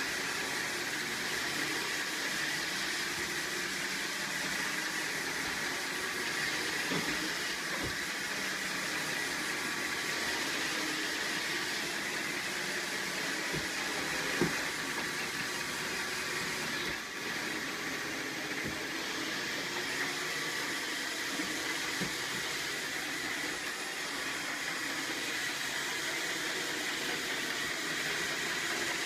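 Roomba robot vacuum running, a steady whirring hum with a high whine held throughout. A few small knocks sound over it, the sharpest about fourteen seconds in.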